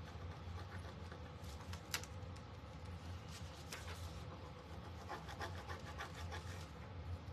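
A small burnishing tool rubbing a rub-on transfer onto a wooden cutting board: faint scratchy strokes, with one sharp tick about two seconds in.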